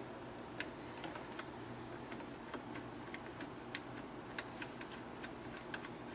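Light, irregular clicks and taps, about three a second, from hands working the sander jig's hardware while it is reassembled, over a faint steady low hum. The belt sander itself is not running.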